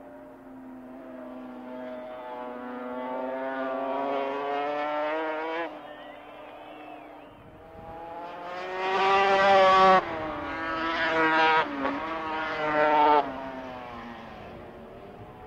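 Two-stroke Grand Prix racing motorcycle engines at full throttle, their pitch climbing in several surges that cut off sharply at gear changes. About halfway in, a bike passes close and loud with a high, rising wail.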